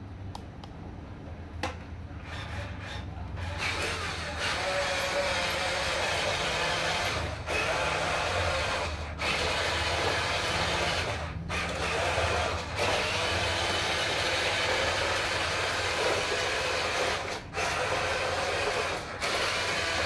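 Huina RC dump truck's electric drive motor and gearbox whirring as it drives, starting a few seconds in and cutting out briefly several times as the throttle is let off and reapplied.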